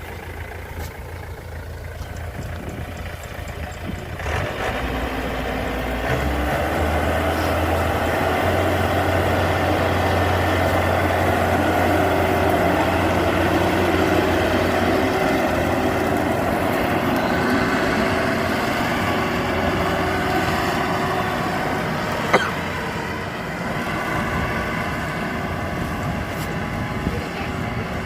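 Yanmar AW82V combine harvester's diesel engine running, speeding up in steps a few seconds in and then holding steady, easing off slightly near the end. A single sharp click sounds over it shortly before the engine eases.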